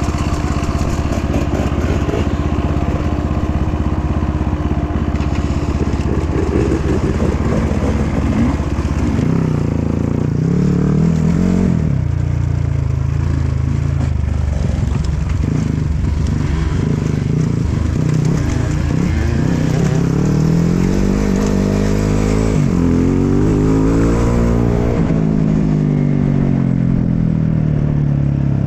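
Dirt bike engine running while riding off-road, its revs rising and falling with the throttle several times, most in the second half.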